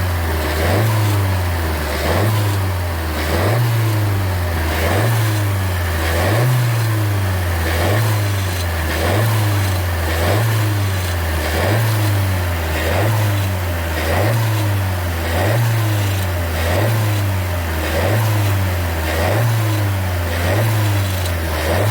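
Suzuki Swift Sport ZC33S's 1.4-litre turbo four-cylinder running in the engine bay, with a chattering 'cha-cha-cha' abnormal noise that comes back in a steady rhythm about every second and a bit. This is the unexplained noise the owner is trying to trace.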